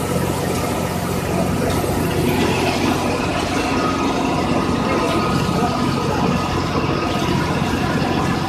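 Electric pipe threading machine running with a steady motor drone.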